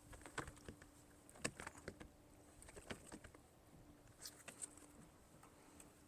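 Near silence with faint, scattered clicks and taps of handling noise, a few at a time, in a small fishing boat.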